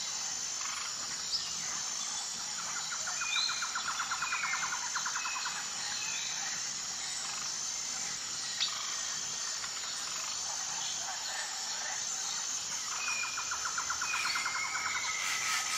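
Forest ambience: a steady high insect chorus with scattered short bird chirps and whistles. A rapid pulsing trill comes in twice, about three seconds in and again near the end.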